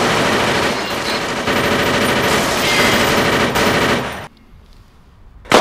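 Rapid automatic gunfire sound effect, a dense continuous burst that cuts off about four seconds in. A single sharp gunshot comes just before the end. It is dubbed over toy Nerf blasters.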